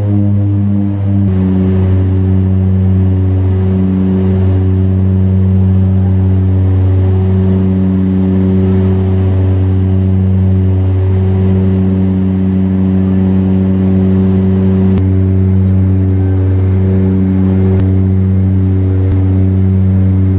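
Seaplane propeller engines droning in flight, heard from inside the cabin. A loud, steady low hum carries a higher tone that swells and fades every few seconds.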